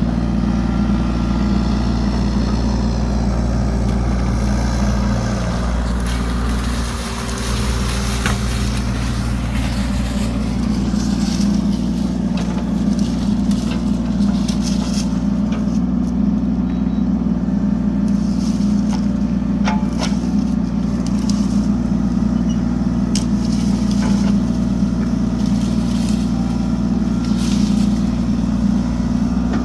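Mini excavator engine running steadily under load while the bucket digs dirt, with scattered knocks and scrapes from the digging.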